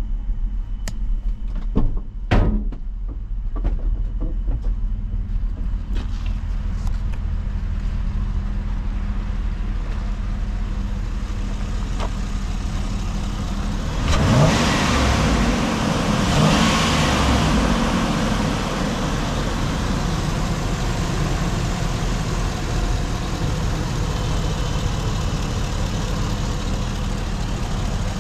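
2017 GMC Savana box truck engine running steadily at idle, with a few sharp clicks in the first seconds. About halfway through, a louder rush of noise comes in for a few seconds, heard from the open engine bay.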